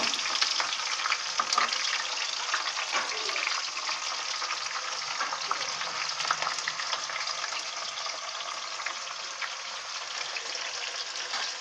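Chopped onion frying in hot mustard oil with whole spices in a kadai: a dense, crackling sizzle that eases off slightly over the seconds.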